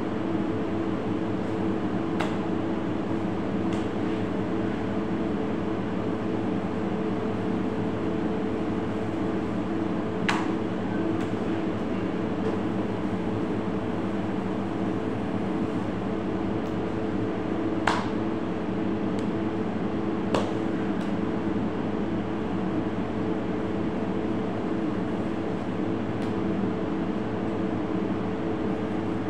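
Steady low mechanical hum of the room's machinery, with a few sharp clicks of a knife against a plastic cutting board.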